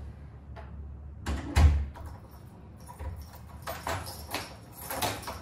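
A front door shutting with a heavy thump about a second and a half in, followed by light clicks and rustling from keys and a carried shopping bag.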